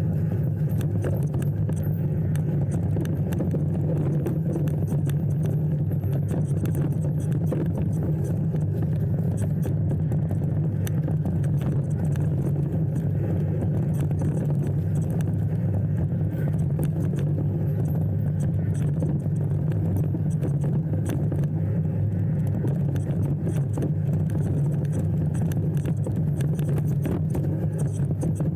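Motor vehicle on the move: a steady low engine drone with road rumble and light rattling throughout.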